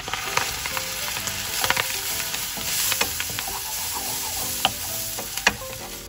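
Fish sauce hitting a hot oiled nonstick pan of scrambled egg over high heat, sizzling loudly from the moment it lands, with a wooden spatula stirring and knocking against the pan in sharp clicks.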